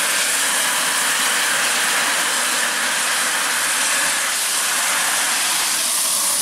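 Eurocopter EC 135 helicopter's twin turbine engines running on the ground at idle, a steady loud hiss with a faint whine.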